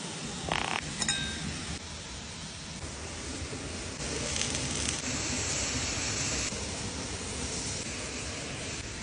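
Steady rushing of a waterfall, with a short rustle and a small click about a second in from handling the twine-tied lamb roll. From about four seconds in a louder hiss joins it: lamb ribs sizzling on a stick spit over hot embers.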